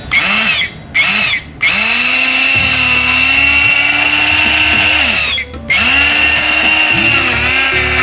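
Electric hand blender blending paneer cubes and curd: two short pulses, then a long run, a brief stop about five seconds in, and on again. Its motor whine wavers up and down in pitch.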